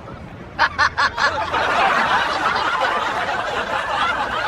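A quick run of four laughs, then many people laughing together from about a second and a half in.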